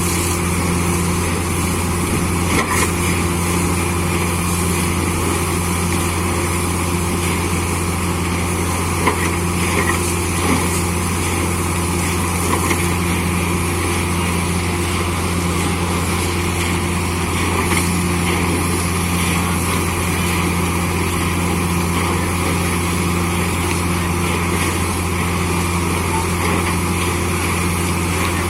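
Borewell drilling rig with its air compressor, running steadily and loudly as one continuous machine din with a strong low hum.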